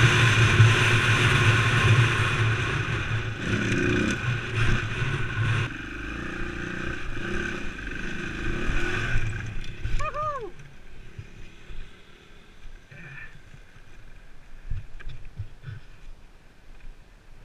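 KTM LC4 single-cylinder four-stroke enduro engine running under load on a dirt trail, easing off after about six seconds. About ten seconds in it revs briefly up and down and then cuts out, as the bike goes down in a muddy rut, leaving only faint knocks and rustling.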